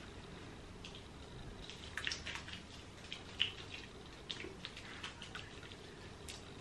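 Fingers massaging a wet, lathered makeup cleanser over the face, giving faint, scattered wet clicks and squelches.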